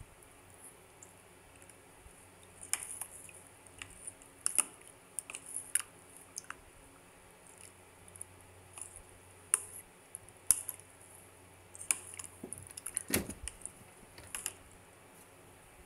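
White plastic serving spoon stirring gulaman jelly cubes in cream and milk inside a plastic tub, with scattered light clicks and taps of the spoon against the tub and cubes, and a louder knock about thirteen seconds in.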